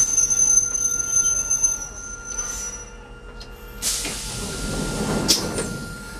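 Hakone Tozan Railway electric car's wheels squealing at a steady high pitch as it slows into a station; the squeal dies away a little under three seconds in. Two short hisses follow as the car comes to a stop.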